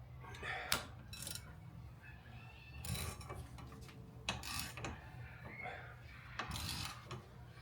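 Scattered short metallic clicks and scrapes from a hand-operated air-conditioning hose crimping tool and its hose fittings being handled and set up, over a faint low hum.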